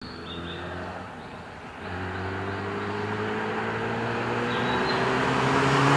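A car engine accelerating, its pitch and loudness rising steadily after a brief dip about two seconds in.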